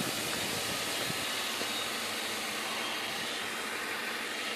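FAE750H hexacopter's six electric rotors running steadily as it lifts off and climbs under autonomous control.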